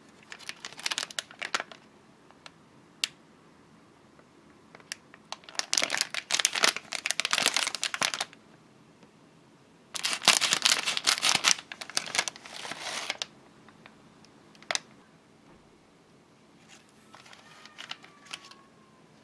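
Plastic bread wrapper crinkling in several bouts as it is handled, with a louder stretch of crinkling about ten seconds in as the wrapper is cut open with scissors, and fainter rustling near the end as the bun comes out.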